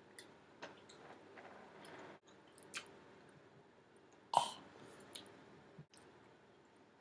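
Quiet chewing and small mouth and food clicks of people eating buttery pasta, with one short, louder sound about four and a half seconds in.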